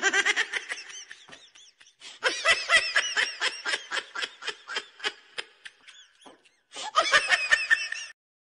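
A person laughing hard, a quick high-pitched run of laughs that eases off twice for a moment and stops near the end.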